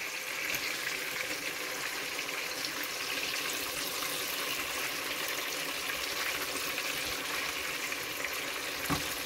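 Shrimp and crab frying in hot oil in a pan and a wok: a steady sizzle, with a soft knock near the end.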